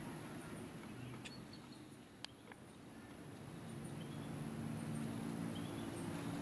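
Quiet outdoor ambience with scattered faint, short bird chirps and a single sharp click just after two seconds. A low, steady hum swells in from about four seconds.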